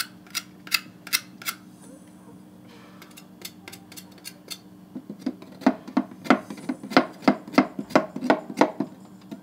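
Kitchen knife scraping the charred skin off a roasted cocoyam on a wooden board, in quick regular strokes about three a second from about five seconds in, after a few similar strokes at the start and a short pause.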